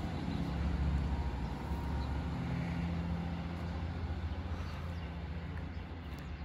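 Diesel multiple-unit train running away down the line, its low engine hum fading steadily as it goes into the distance.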